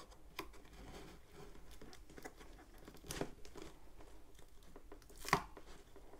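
Scissors working at the packing tape along a cardboard box's seam: faint scraping and rustling, with two louder rasps of the tape tearing, about three seconds in and near the end.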